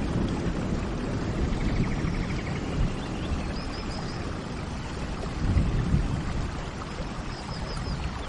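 Steady rain falling, with small birds chirping and trilling briefly a few times over it.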